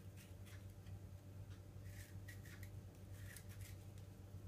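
Faint, scattered scrapes and clicks of a blade cutting the skin off a pear while it is peeled by hand, over a steady low hum.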